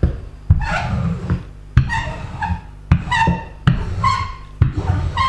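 Wooden rolling pin rolling out dough on a table, about one stroke a second. Each stroke opens with a knock and low rumble and ends in a short squeak.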